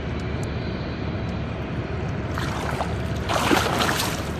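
Water splashing as a released sturgeon kicks free of the hand at the boat's side, starting about two seconds in and loudest for about a second near the end, over a steady low rumble.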